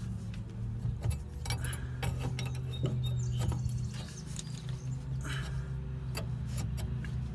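Scattered light clinks, taps and rustles of hands handling a fuel hose and its fittings, over a steady low hum.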